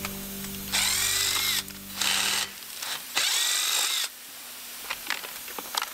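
Electric power drill run in three short bursts, the motor whine rising and then falling with each trigger pull, followed by a few light clicks.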